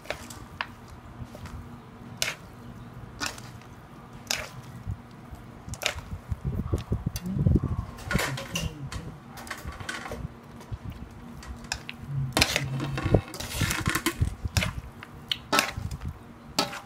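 A metal spoon and chopsticks tossing a salad in a metal mixing bowl, with irregular clinks and scrapes of the spoon against the bowl over a steady low hum.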